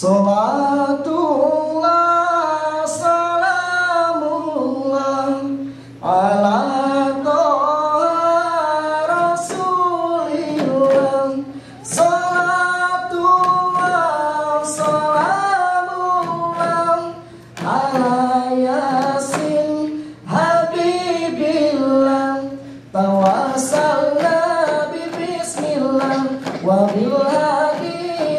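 A group of voices chanting an Acehnese song in unison without instruments, in phrases of a few seconds with short breaks between them, with a few sharp claps now and then.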